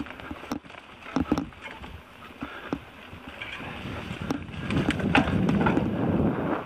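Onboard sound of a 2018 Orbea Alma H20 29er hardtail mountain bike on dirt singletrack: scattered knocks and rattles from the bike over bumps. From about four and a half seconds a rushing noise of wind on the microphone and tyres builds and grows louder as the speed picks up.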